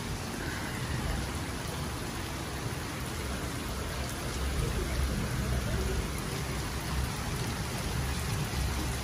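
Heavy rain falling steadily, a constant hiss, with a low rumble underneath.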